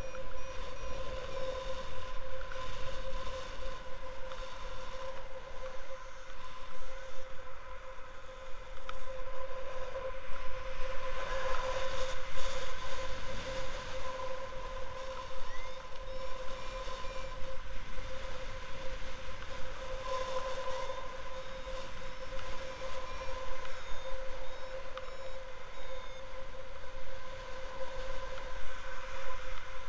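Wind buffeting the microphone of a camera on a gliding paraglider, rising and falling in gusts, under a steady high tone held at one pitch.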